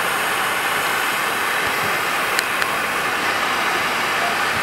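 Steady rushing noise at a burning wooden-house fire, with two faint ticks about two and a half seconds in.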